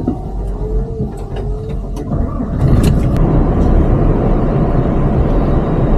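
Diesel engine of a tractor-trailer heard from inside its cab, running and getting louder about two and a half seconds in as the truck pulls away, with a few short clicks.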